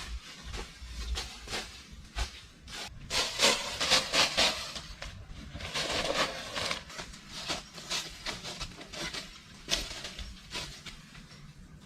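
Irregular scraping and rubbing strokes on wood, with a few sharper knocks, busiest in the middle few seconds.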